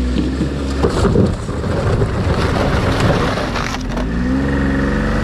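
Ski-Doo Expedition snowmobile with a 900 ACE three-cylinder four-stroke engine running as it is driven up onto a wooden utility trailer. The track grinds and clatters over the deck boards for about a second, starting a second in. The engine then drops back to a steady idle on the trailer.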